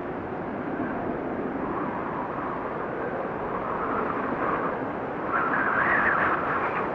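Wind noise: a steady rushing of wind that rises and falls in gusts, with a stronger, higher gust near the end.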